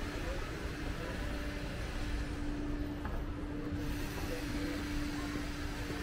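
Town street ambience: a steady wash of traffic noise with a low rumble and a constant hum.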